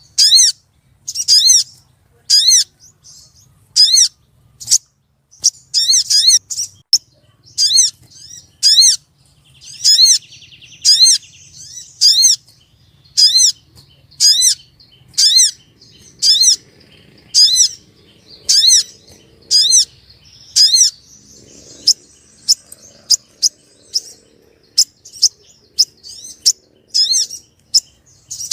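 Female sogon bird calling: a long series of short, sharp, high chirps, roughly one a second, coming faster near the end. This is the female's call to males, used as a lure to make males answer.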